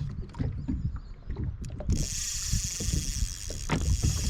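Fishing reel and rod working against a heavy fish, with low knocks and rumbles on the small plastic boat; about two seconds in a steady high hiss starts suddenly and keeps going.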